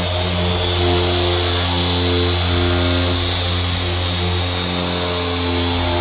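Power grinder running steadily with a high, even whine, over background music.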